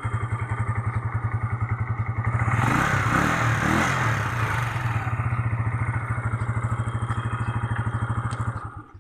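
Euro 150 motorcycle's single-cylinder engine idling with an even, steady beat. It is revved once briefly about two and a half seconds in and settles back to idle. It runs without choke now that its clogged carburettor pump jet has been cleaned, and the sound cuts off just before the end.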